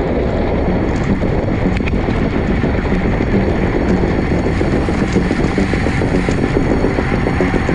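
Steady wind rush buffeting the microphone of a camera on a racing bicycle.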